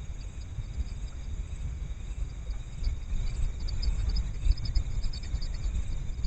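Insects, crickets or similar, chirping in a fast, pulsing trill that grows busier about halfway through, over a louder, uneven low rumble.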